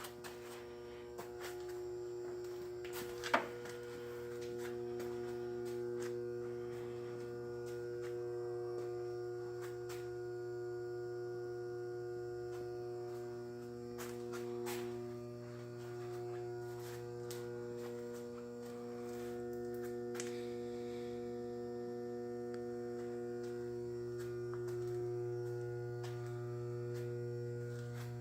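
Steady electrical mains hum made of several constant tones, with a single sharp click about three seconds in.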